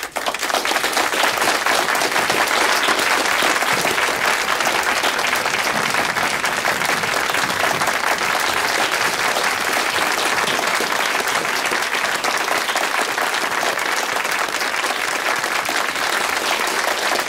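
An audience applauding: many people clapping together in a dense, steady wave that breaks out all at once.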